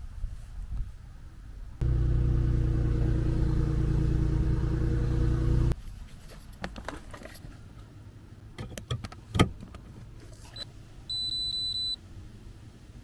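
A car engine runs steadily at a low, even pitch for about four seconds and cuts off abruptly. Clicks and one sharp knock follow, then a high electronic chime beeps rapidly for about a second.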